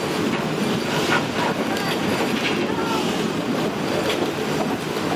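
Open-sided passenger car of a train rolling down curving track: a steady rumble and clatter of wheels on the rails, with a few short squeals from the wheels.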